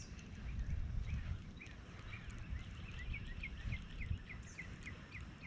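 A small bird calling in a quick series of short, repeated chirps that speed up to about three or four a second, over a faint low rumble.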